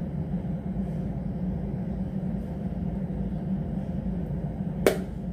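A steady low hum and rumble, with one sharp click near the end.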